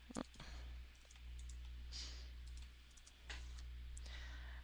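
A few computer mouse clicks, the clearest just after the start and another a little past three seconds in, over a steady low electrical hum.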